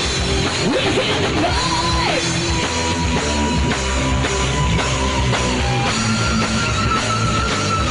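A live rock band playing loudly on electric guitars, bass and drums, with a pitch bend about two seconds in and long held high notes over the band after that.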